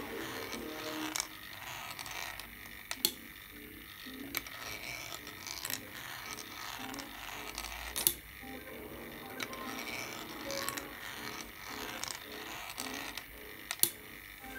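Small 3D-printed marble machine running: steel balls rolling and rattling down the plastic zig-zag ramps over a steady mechanical whir from the lift, with sharp clicks every one to three seconds as balls drop and strike the track.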